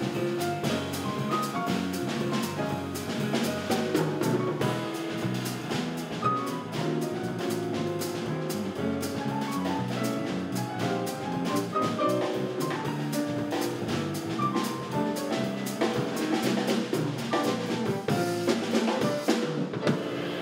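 Jazz piano trio playing live: grand piano, bass guitar and drum kit, with a steady stream of cymbal and drum strokes. The cymbals fall away just before the end as the piece closes.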